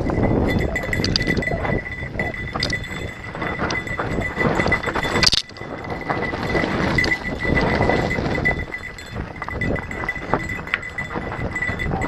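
Mountain bike descending a dirt singletrack, heard from a helmet camera: tyres crunching over dirt and rocks, wind rush, and the chain and frame rattling and knocking over bumps, with a steady high buzz. A sharp, loud knock comes about five seconds in.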